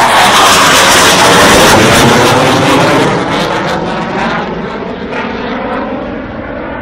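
Twin-engine F/A-18 Hornet fighter jet at takeoff power, very loud, with a sweeping rise and fall in tone as it passes close by. After about three seconds the noise fades and loses its hiss as the jet pulls away.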